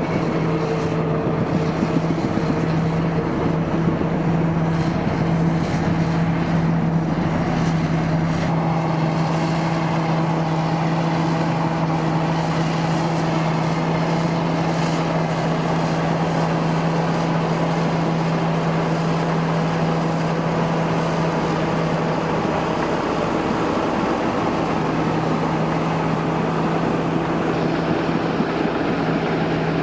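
Caterpillar D8K crawler tractor's diesel engine running steadily under load as it tows a loaded 463G scraper across the ground. The engine note dips briefly about three-quarters of the way through, then picks back up.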